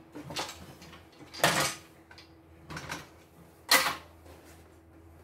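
Loose plastic cover pieces of a disassembled embroidery machine being handled and set down on a wooden workbench: a few short knocks and scrapes, the loudest about one and a half and nearly four seconds in, over a faint steady hum.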